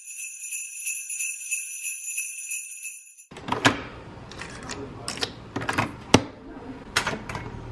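Jingle bells ringing for about three seconds, then it cuts off suddenly into a background hiss with several sharp clicks and knocks.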